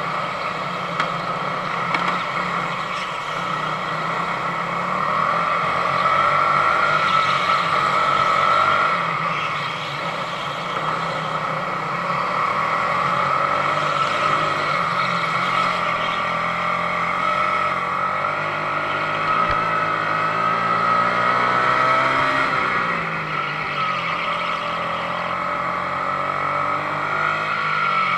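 Sodi RX250 rental go-kart engine at racing revs, heard from the kart itself. The pitch rises and falls as the kart brakes and accelerates through corners, with a clear drop and climb back up about two-thirds of the way in.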